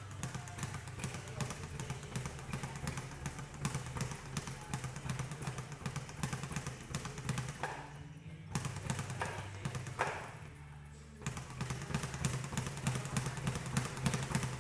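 Speed bag being punched continuously, a fast, even rattle of the bag knocking against its overhead rebound platform. The rhythm breaks off briefly twice, about eight seconds in and again around ten and a half seconds in.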